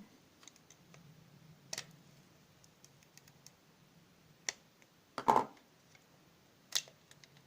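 A few sharp, separate clicks and knocks from handling the opened battery charger's plastic parts and tools, the loudest a little past five seconds in.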